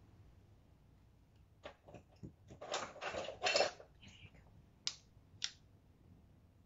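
Spoons scraping and tapping while Greek yogurt is spread over a watermelon slice: a run of clicks and short scrapes, then two sharp taps.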